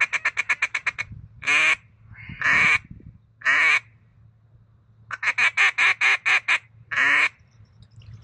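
Hunter's duck call blown in mallard-style quacking: a fast, even chatter of short notes, three drawn-out quacks about a second apart, another fast chatter, then one last quack.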